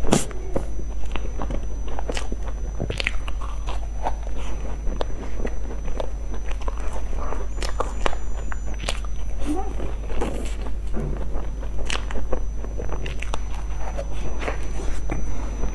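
Close-miked biting and chewing of crumble-topped cream puffs: a sharp crunching bite at the start, then irregular crisp crunches and chewing.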